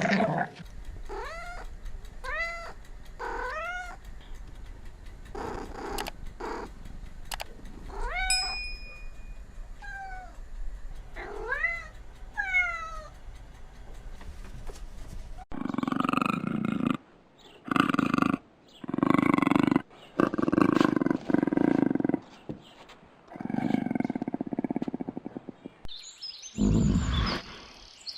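Cats meowing: a run of short, high meows that rise and fall, one after another, through the first half, then a louder, lower stretch of animal calls in the second half.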